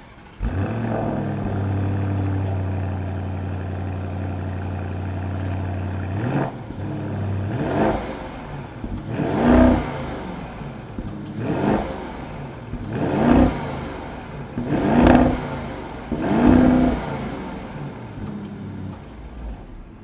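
Audi SQ8's 4.0-litre twin-turbo V8 petrol engine heard from the exhaust. It starts about half a second in and runs at a fast idle that settles about six seconds in. Then it is revved in six or seven short throttle blips, each rising and falling, before dropping back to idle.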